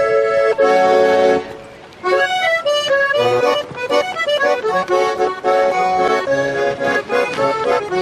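Garmon (Russian button accordion) playing: a couple of held chords, a short break, then a quick melody over a bass-and-chord accompaniment.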